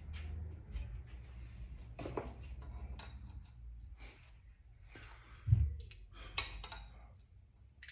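Light metallic clinks and knocks of tools and parts being handled while working on an engine, over a steady low hum, with one louder thump about five and a half seconds in.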